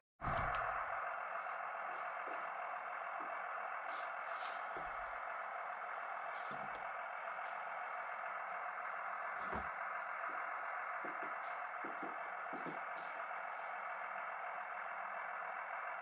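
RC model bulldozer running steadily as its blade tilts, with a few faint clicks.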